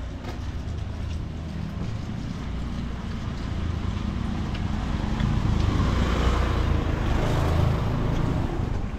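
A motor vehicle's engine running close by, growing louder from about five seconds in and easing off near the end as it passes.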